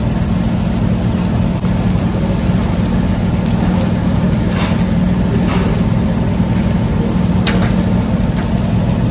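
Steady loud hiss with a low hum from a tabletop grill-and-hotpot station, food sizzling on the steel griddle.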